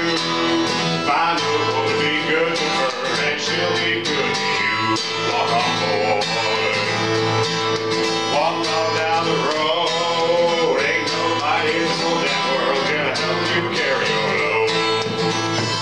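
Acoustic guitar strummed and picked in a country, bluegrass style, with a man singing over it.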